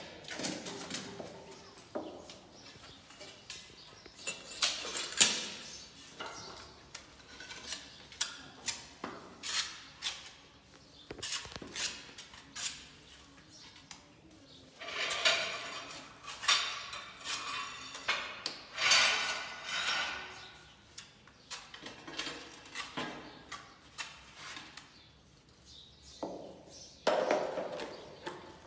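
A steel trowel scraping and clinking as cement mortar is scooped and spread on the back of a skirting tile, with scattered sharp taps and knocks. The longer scraping spells come about halfway through.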